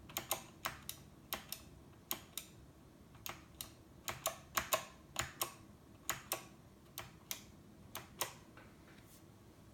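Northgate Omnikey 102 mechanical keyboard with clicky Alps SKCM Blue switches: single keystrokes tapped slowly and unevenly, each a sharp click, stopping a little over a second before the end.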